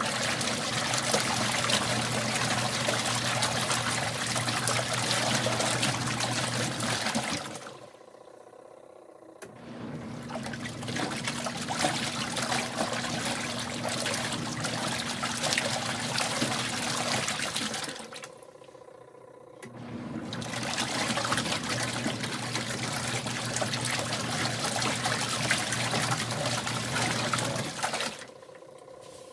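Kuppet portable washing machine agitating a wash load. The motor hums and the water churns for about eight seconds, stops for about two seconds, then starts again, three times in a row.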